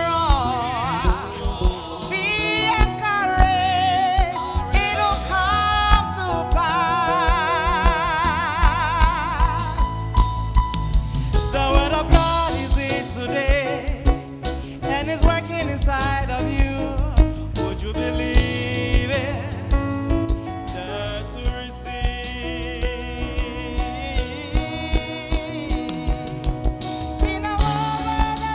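Gospel music: a voice sings long, wavering held notes over a band with a steady beat.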